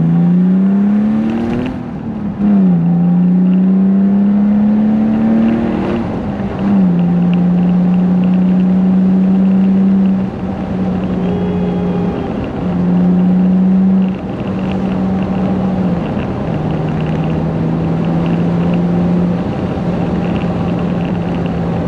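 BMW E36 M3's straight-six with a UUC Corsa exhaust accelerating hard: the engine note climbs, drops at an upshift, climbs again and drops at a second upshift, then holds a steady pitch as the throttle is eased off and back on a few times. Heard from inside the cabin with the windows down, with a lot of wind noise.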